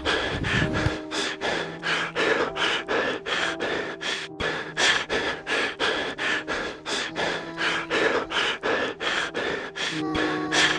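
Background music with a fast, steady beat over sustained notes.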